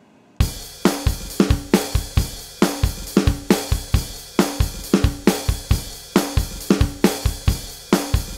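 Background music: a drum-kit beat of kick, snare, hi-hat and cymbal at a quick steady tempo, starting suddenly about half a second in.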